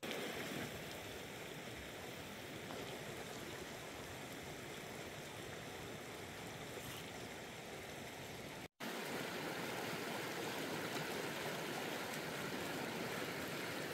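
Steady rushing of running water, with a brief gap of silence a little under nine seconds in, after which the rushing returns slightly louder.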